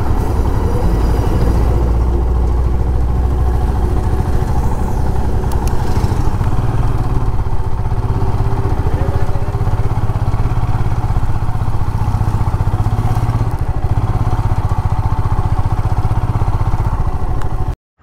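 Motorcycle running while being ridden at low speed, heard as a steady engine and road rumble; it cuts off abruptly near the end.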